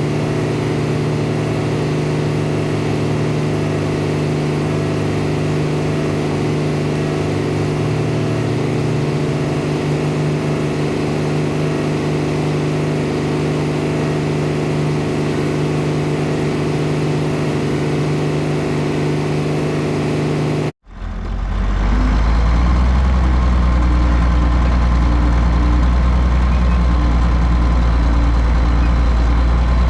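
Farm machinery engine running steadily. About 21 seconds in the sound cuts off abruptly and a different engine, with a deeper, heavier sound, runs steadily after it.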